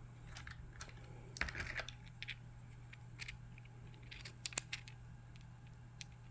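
Cut agate pieces being handled: scattered light clicks and taps, clustered about a second and a half in and again past four seconds.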